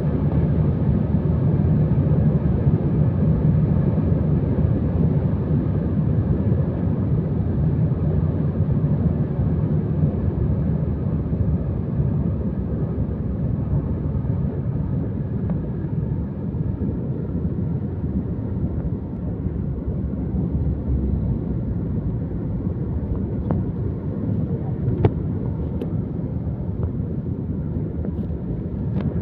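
Steady low rumble of a moving vehicle, with a few faint clicks in the last few seconds.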